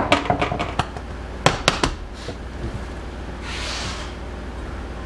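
A spatula and a nonstick fry pan being handled at a glass-top stove: a quick run of clicks and knocks in the first two seconds, then a short scrape a little past the middle.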